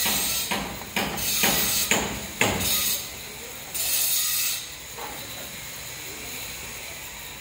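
Empty woven plastic cement sacks being handled by hand: a run of crinkling rustles and knocks over the first three seconds, and one more short hissing rustle about halfway through. After that only a low steady background.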